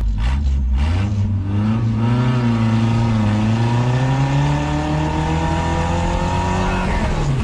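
Small pickup truck's engine under hard acceleration, its pitch climbing steadily for about six seconds, then dropping sharply near the end as the revs fall.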